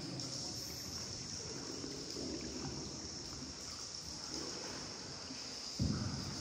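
Water sloshing and trickling around a small paddled boat, with a few soft swishes, over a steady high insect buzz. A single thump near the end.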